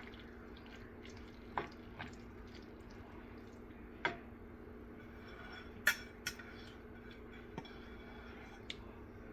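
A spoon stirring and mashing the thick pav bhaji vegetable mash in a pan, with soft squishy sounds and scattered clinks of the spoon against the pan, the loudest about six seconds in. A steady low hum runs underneath.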